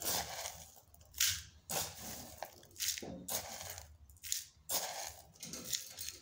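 Bird seed rattling and scraping in a plastic feeder tray as it is emptied and refilled by hand, in a run of short scratchy bursts about once or twice a second.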